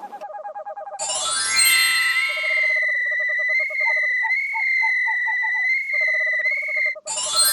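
Synthesized electronic tones: a quick rising sweep, then a long high, slightly wavering tone held for about five seconds over short, rapidly repeated lower notes.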